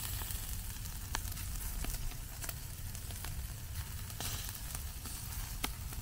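Lamb chops sizzling in a wire grill basket over hot charcoal, a steady hiss broken by scattered sharp pops and crackles. A steady low rumble runs underneath.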